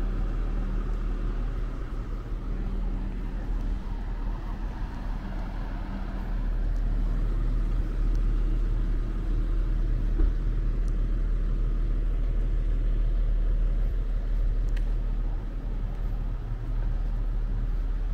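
Road traffic: motor vehicles running close by, a steady low rumble that grows a little louder about six seconds in.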